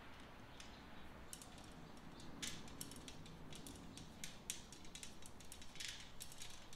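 Kennel panel rods being screwed by hand into their holes: faint, irregular clicking and creaking that starts about a second and a half in.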